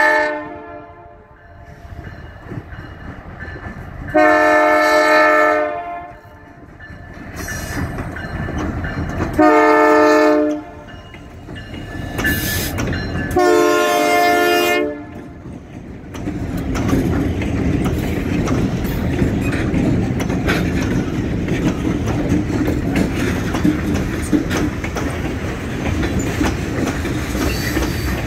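Diesel freight locomotive's air horn, several notes sounding together, blowing the level-crossing signal: the end of a long blast, then a long blast, a short one and a final long one. About halfway through, the locomotives reach the crossing and pass close by, and a steady, loud rolling noise with rhythmic clicking takes over as the covered hopper cars run past on the rails.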